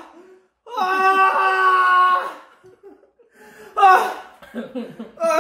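A man's long drawn-out wail at a steady pitch, held for about a second and a half, then a shorter loud cry a few seconds in, in pain from the burning heat of very spicy ramyeon.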